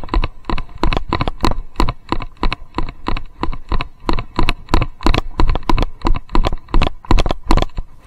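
Loose chest-harness camera knocking in its mount, jolted with each stride of the horse it is riding on: a fast, regular clatter of sharp clicks, about four a second.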